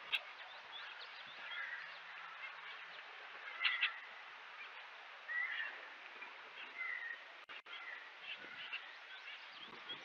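Wild birds calling around a feeder: scattered short chirps and a few brief whistled notes, with a pair of sharper chirps about three and a half seconds in, over faint outdoor background hiss.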